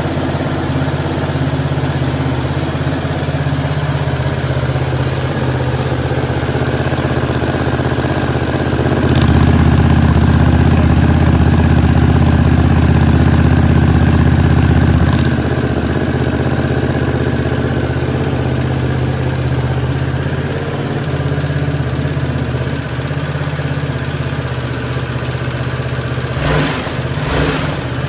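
Harley-Davidson Sportster S V-twin running steadily at idle through a Jekill & Hyde electronically switchable exhaust, starting in its quiet mode. It gets louder and deeper for about six seconds from about nine seconds in, then settles back to the steadier idle.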